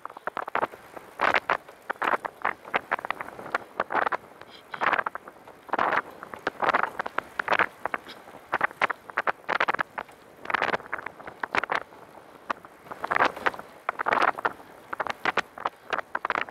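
Wind buffeting and rattle from a recumbent trike ridden fast on a paved path, heard through a camera mounted on the trike: irregular short gusts and clicks, several a second, with no steady engine-like tone.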